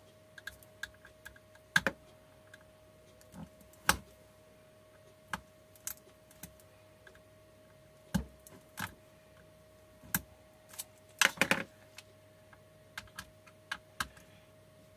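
Scattered small clicks and taps of fingers and small hand tools on a plastic battery case while tiny screws are picked out of the BMS plate. A louder cluster of clicks comes about eleven seconds in, over a faint steady tone.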